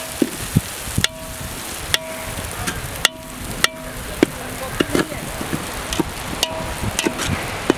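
Metal ladle scraping and knocking against the sides of an aluminium pot while stirring onion-tomato masala frying in oil, about two knocks a second, some of them ringing briefly, over a steady sizzle.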